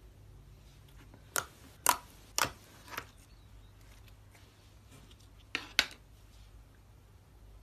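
Thick slime being pressed and pinched by fingers, giving off short, sharp pops and clicks: four spread over a couple of seconds, then two close together near the end.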